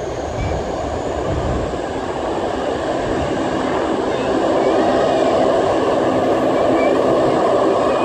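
McDonnell Douglas MD-83 airliner's two rear-mounted Pratt & Whitney JT8D turbofans at takeoff power during the takeoff roll: a steady jet rumble and hiss that grows louder about halfway through as the plane comes closer.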